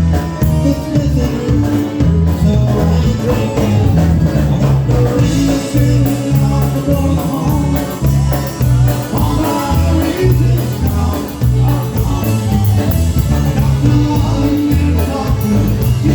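Live polka band playing a polka, with a steady, even bass beat under the band.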